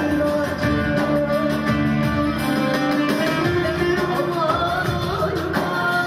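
A woman singing a Turkish folk song into a microphone, with long held, wavering notes over an accompaniment that includes guitar.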